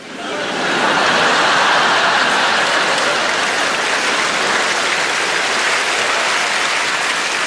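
Studio audience applauding, swelling up over the first second and then holding steady.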